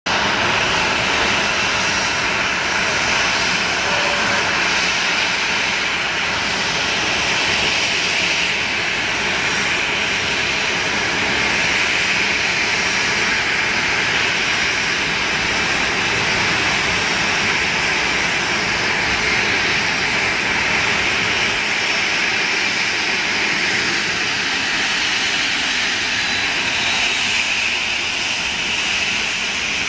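Boeing 737 jet engines running at low taxi power while the airliner taxis, a steady, even jet whine and rush of noise.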